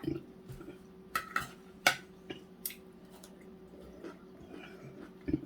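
Eating utensils clinking and tapping against dishes and bowls during a meal: a handful of sharp, scattered clicks, the loudest about two seconds in, over a faint steady hum.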